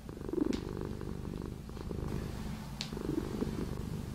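Domestic cat purring steadily.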